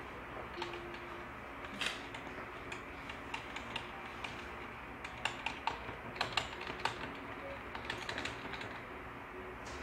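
Computer keyboard keys pressed in irregular, scattered clicks, a dozen or so, over a faint steady hum from the running PC.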